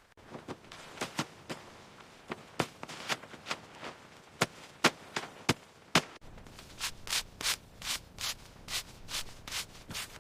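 Repeated short scraping strokes, like tools working dirt, irregular at first and then a quicker, steadier run of about two to three strokes a second from about six seconds in.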